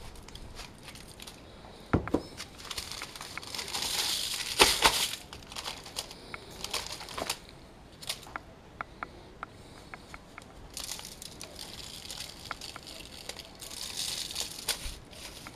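Aluminium foil crinkling and rustling as gloved hands turn and pat down a rack of baby back ribs on a foil-lined tray, with many sharp taps and clicks. It is busiest a few seconds in and again near the end.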